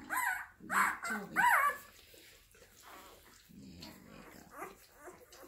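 Newborn Rhodesian Ridgeback puppy giving three short, high, wavering squeals in the first two seconds while the adult dog licks it, followed by quieter licking sounds.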